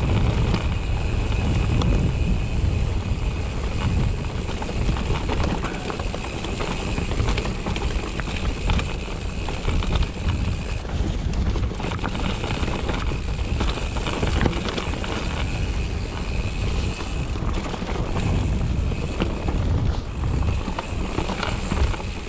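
Mountain bike descending a rocky trail: wind buffeting the microphone as a heavy rumble, with the bike rattling and clattering over rocks in many quick knocks.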